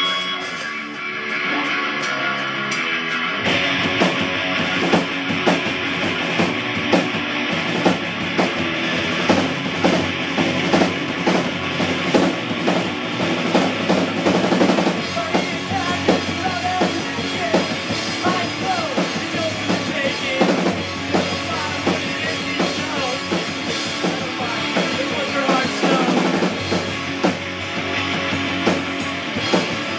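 Rock band playing with electric guitar and drum kit. The full band, with drums, comes in about three and a half seconds in and carries a steady beat.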